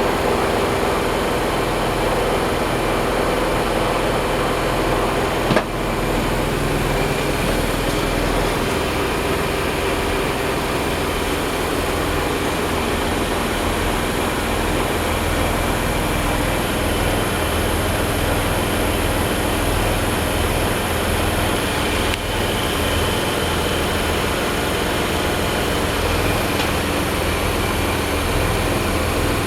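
Boat's Yanmar 6KY-ET marine diesel engine running steadily, with one brief click about five and a half seconds in.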